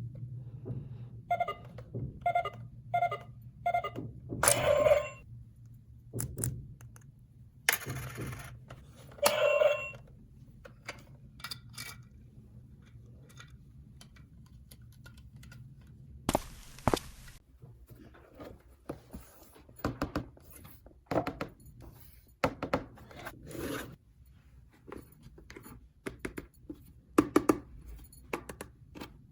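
Hard plastic dollhouse toy pieces being handled and fitted together: a string of light clicks, taps and knocks. Starting about a second in, several taps give a short ringing chime, and about halfway through there is a brief scraping rush.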